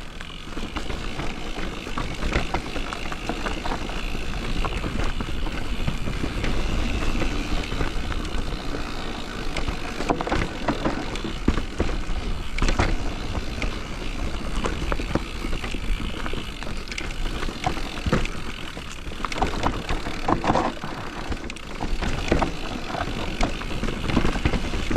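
Simplon Rapcon Pmax Pinion electric mountain bike descending a trail: continuous rolling noise of tyres on dirt, with many quick knocks and clatters as the bike goes over bumps and roots.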